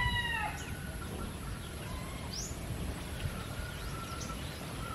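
A rooster's crow trails off in falling tones in the first half-second. After it comes quiet rural background with a few faint bird chirps and short calls.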